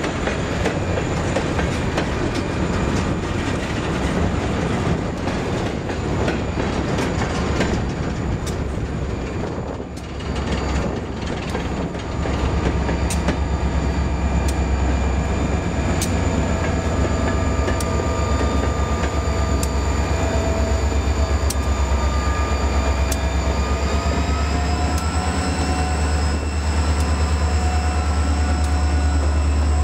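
Coal train hopper cars rolling past, wheels clicking over rail joints. From about 12 seconds in, the deep rumble and steady whine of a Norfolk Southern EMD SD40-2 diesel locomotive grow as it comes alongside, the whine rising slightly in pitch about 24 seconds in.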